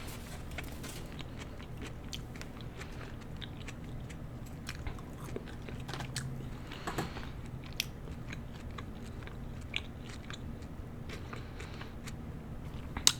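A person chewing and biting food close to the microphone, with soft wet mouth clicks and smacks scattered throughout, and a sharper click near the end.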